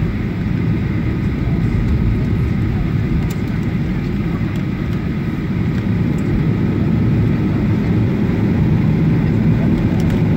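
Cabin noise of a Boeing 737-800 taxiing, heard from a window seat over the wing: its CFM56 engines at low taxi power give a steady low rumble with a faint whine on top.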